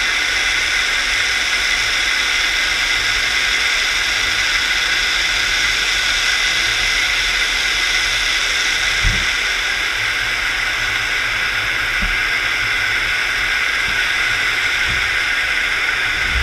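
Steady rushing hiss of water and a scallop dredge being towed over the seabed, picked up underwater by the camera, with a low rumble beneath and a couple of dull knocks partway through.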